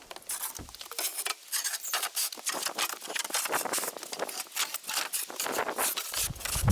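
Pieces of wood being cleared away by hand, a quick irregular run of clattering clicks and knocks, with a heavier low thud coming in near the end.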